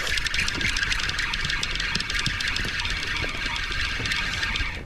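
Spinning reel being cranked fast to wind in line, a steady whir with rapid ticking that stops abruptly near the end.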